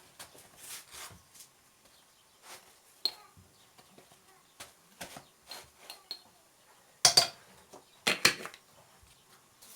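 Spoons and spice containers clicking and clinking against a bowl as ground spices are measured in: scattered light taps, with a louder clatter about seven seconds in and again a second later.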